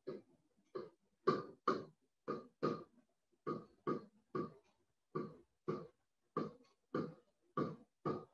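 Pen strokes on a writing tablet: a run of short, scratchy strokes and taps, about two a second, each fading quickly, as numbers and letters are written by hand.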